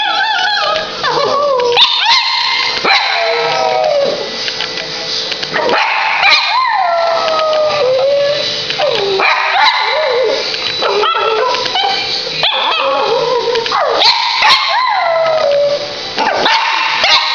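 Silky terrier howling, a string of drawn-out howls that each slide down in pitch, repeated every second or two with short breaks between.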